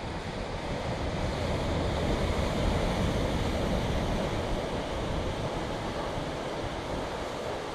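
Steady wash of ocean surf, with wind buffeting the microphone as a low rumble; it swells a little about two seconds in.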